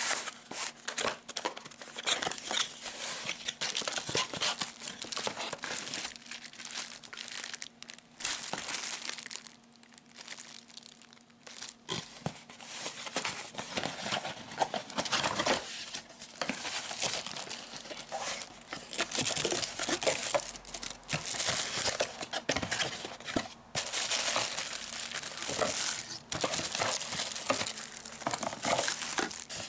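Cardboard box and plastic wrapping being handled while unpacking, crinkling and rustling in irregular bursts with short pauses.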